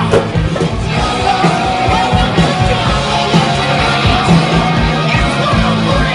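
Loud rock music with singing over a steady beat.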